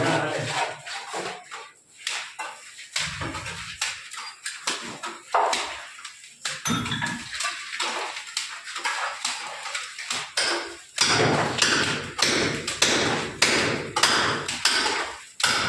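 A mason's trowel throwing cement plaster onto a brick wall: a run of sharp taps and wet slaps. They come thicker and louder over the last few seconds.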